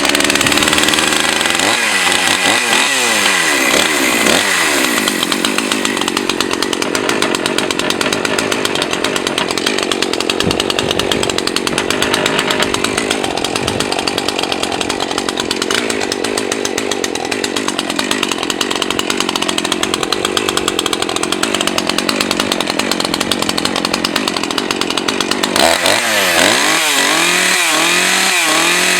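Husqvarna 543 XPG two-stroke chainsaw revving up and cutting steadily through a pine log at full throttle for most of the time; about 25 seconds in the cutting noise stops and the engine is blipped up and down. The owner feels the carburettor is set a little low, giving too little rpm at full throttle.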